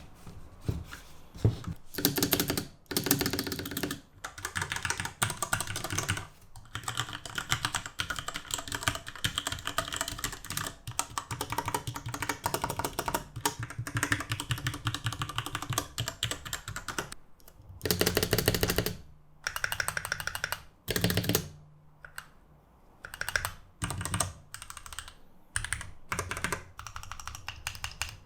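Typing on a Keychron Q2 mechanical keyboard: a long run of rapid key clicks with a few brief pauses and several louder, faster flurries.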